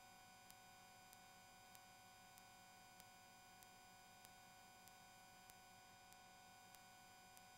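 Near silence: a faint steady electronic hum and hiss, with a soft tick about every two-thirds of a second. No helicopter rotor or engine is heard.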